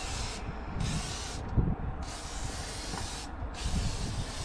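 Aerosol can of CRC penetrating spray hissing in long bursts with short breaks between them, being worked into the excavator's sticking hydraulic control valves to free them. There is a low knock about a second and a half in.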